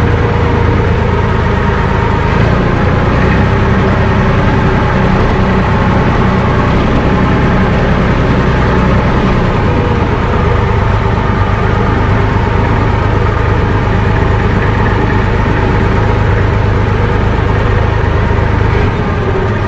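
IMT tractor's diesel engine running steadily under way, heard from inside the cab; the engine note shifts slightly about nine seconds in.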